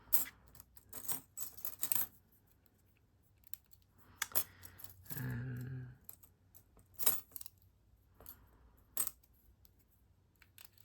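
Lock pick and tension tool working the pins of a Yuqi lock: sharp metallic clicks and clinks at irregular intervals, with quiet gaps between them.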